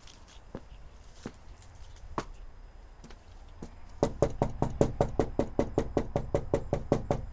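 A few scattered clicks, then about four seconds in a rapid, even series of knocks, about six a second.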